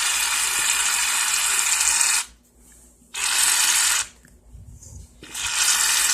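Aerosol shaving cream can spraying with a loud hiss in three spells: one long spray, a break about two seconds in, a short spray, another break about four seconds in, then spraying again. The can is almost empty, being squeezed out for the last of its foam.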